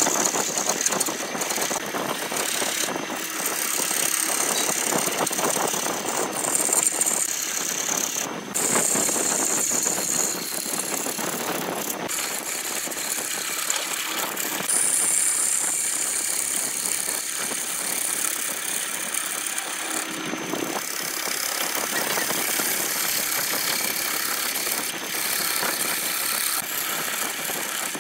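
A wood lathe running while a hand-held chisel cuts into the spinning workpiece and peels off long shavings. The cut makes a steady scraping hiss over the lathe's running, and its pitch shifts now and then as the tool moves.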